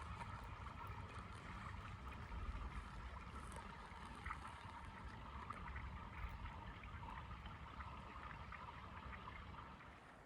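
Small waves lapping against the edge of ice on a partially frozen lake, a steady trickling wash with faint scattered ticks, over a low rumble.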